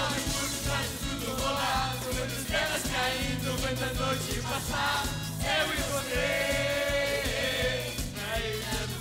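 Amateur karaoke singing into a microphone over a backing track with a steady bass beat, several voices singing together; a long held note about six seconds in.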